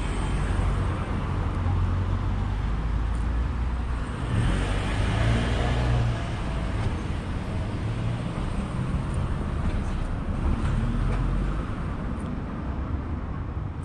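Street traffic at night: cars driving past close by, their engine and tyre noise swelling as each goes by, loudest about four to six seconds in, over a steady low rumble.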